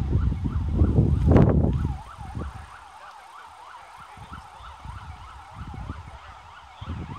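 A vehicle siren wailing up and down quickly, about three sweeps a second, from an escort car leading the bicycle race. Wind buffets the microphone with a low rumble for the first two seconds.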